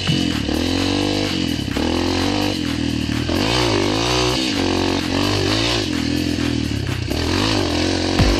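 Dirt bike engine heard from on board while riding a twisting woodland trail. The engine pitch rises and falls repeatedly with the throttle.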